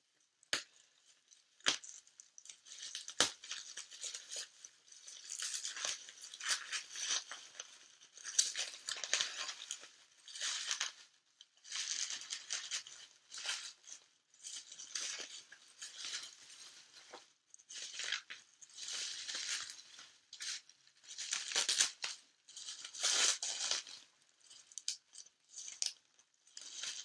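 Packing material being torn and pulled away by hand, in repeated bursts of rustling and tearing, with a few sharp clicks in the first few seconds.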